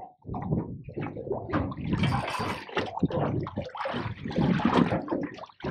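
Water sloshing and slapping against a small boat's hull, irregular and uneven, with stronger stretches about two seconds in and again near the end.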